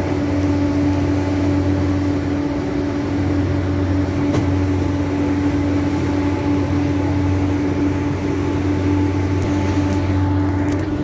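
Schafberg rack railway train running with a steady engine drone: an even low hum with a constant higher tone over it, heard from on board.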